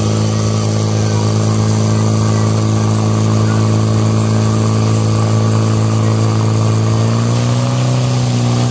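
Portable fire pump's engine running at full throttle, a steady loud drone that steps up a little in pitch about seven seconds in, as it pumps water through the hose lines to the jets.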